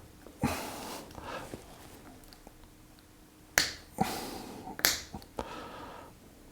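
Hand wire cutters snipping into a multistrand copper speaker cable, a few sharp snaps with rustling of the cable being handled between them.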